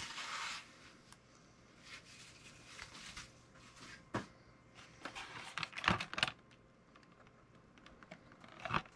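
Handling noise from unpacking a boxed die-cast toy truck: a brief rustle of tissue paper at the start, then a few scattered sharp clicks and taps, about 4, 6 and 9 seconds in, from hands at the cardboard box and the plastic-bagged cab.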